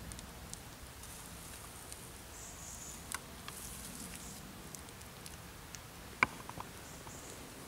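Quiet riverside background with a few light clicks and taps, the sharpest about six seconds in.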